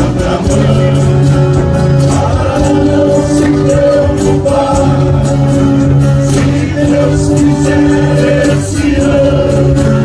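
Live Brazilian caipira country music: a group of men singing together, accompanied by strummed violas caipiras and acoustic guitars.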